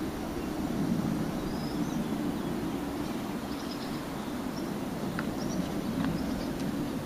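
Outdoor ambience: a steady low rumble, with faint, brief bird chirps now and then.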